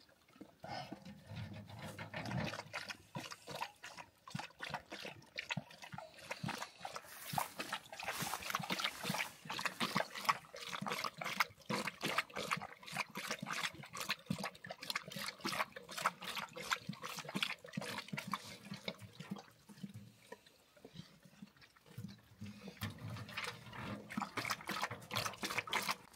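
Two large dogs lapping water from a metal trough: quick wet laps running on continuously, easing off briefly about twenty seconds in.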